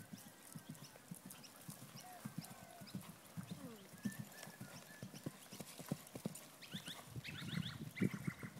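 Hoofbeats of a horse cantering on grass turf: a steady run of soft, low thuds several times a second. High chirping comes in near the end.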